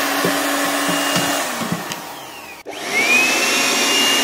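Jakmister 600 W hand-held electric air blower running: a loud rush of air over a high motor whine. It breaks off briefly about two-thirds of the way in, then starts again, the whine rising as the motor spins up and then holding steady.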